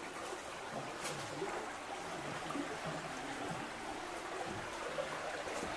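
Soft, steady rushing outdoor ambience, an even hiss with no single event standing out.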